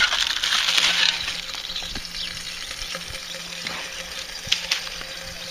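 Hot chicken grease sizzling as it is dumped out of a solar oven's cooking tray, loudest at first and dying down over a few seconds.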